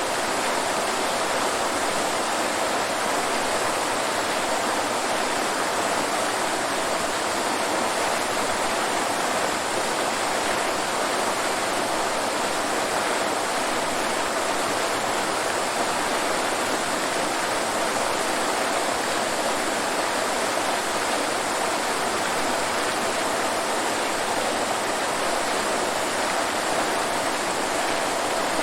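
Waterfall: a steady, unbroken rush of falling water with no change throughout.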